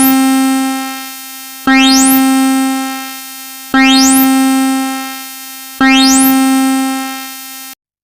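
Synthesized alert chime of a mock emergency alert: a single bell-like electronic note sounded four times about two seconds apart, each fading away, cutting off suddenly near the end.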